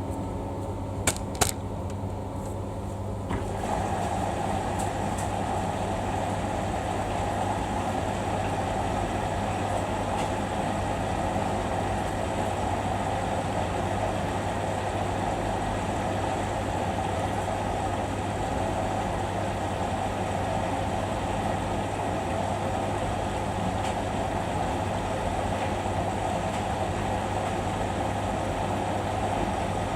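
Samsung washing machine running at the start of a Daily 40 wash: a couple of clicks, then about three seconds in a steady rushing noise sets in and holds over a low hum.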